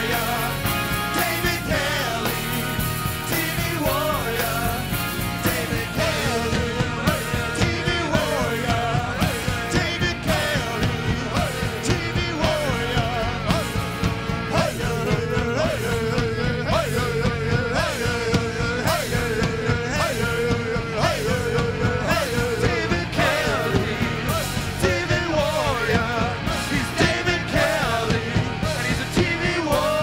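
Live rock band playing a section without lyrics: drums keep a steady beat under bass guitar and a lead line that wavers in pitch.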